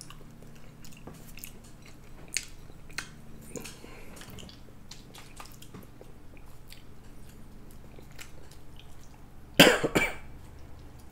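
Close-miked eating sounds: chewing with small wet mouth clicks, then a loud double cough near the end.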